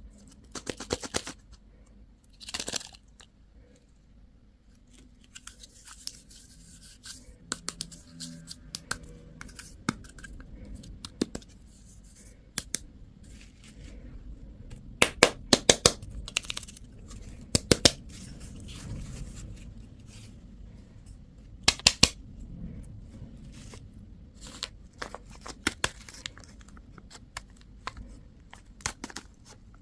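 Candy and toy packaging being torn open and handled: wrappers tearing and crinkling, with scattered sharp plastic clicks. The loudest clusters of clicks come about halfway through and again about two thirds of the way in.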